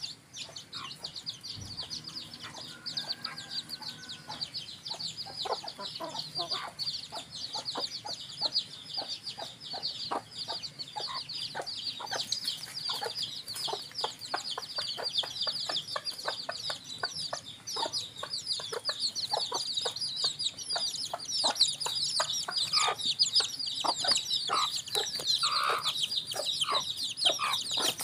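Village hens (ayam kampung) clucking as they forage, over a constant chorus of chicks peeping in rapid short high notes. The peeping and clucking grow louder in the second half.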